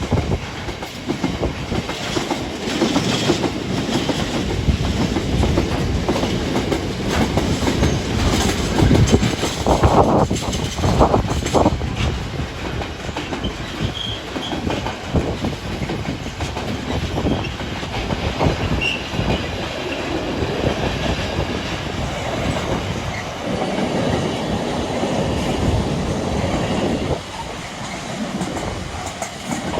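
A train passing close by for about half a minute, its wheels clattering steadily over the rail joints, loudest about ten seconds in.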